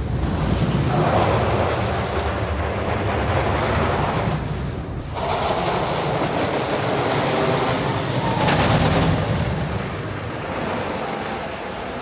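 Wooden roller coaster trains running over the track: a loud rumbling roar that swells and fades in passes, with a short drop about five seconds in.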